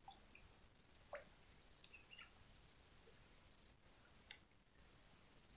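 Insects chirping in a steady rhythm: high, even trills about half a second long, repeating roughly once a second, over a fainter continuous high whine.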